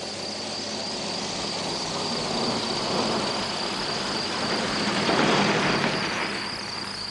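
Crickets chirring steadily. A broad rushing noise swells up to a peak about five seconds in and then dies away.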